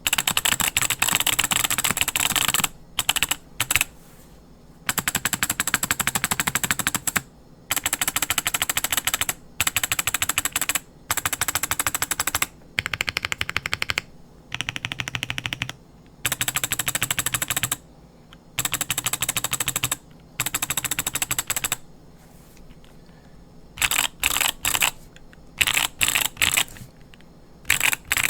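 Fast typing on an MM Studio Class80 mechanical keyboard with its built-in solenoid switched on. The solenoid clacks on every key press and every release, so each run of typing comes out as a dense, rattling string of clicks. The typing comes in runs of one to three seconds with short pauses between them, and the runs grow shorter near the end.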